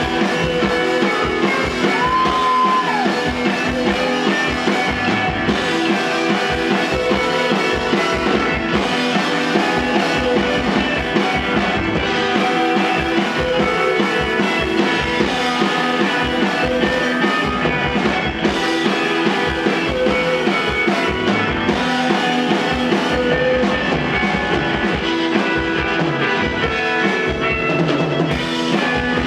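Live rock band playing an instrumental passage, with electric guitars and a drum kit keeping a steady beat.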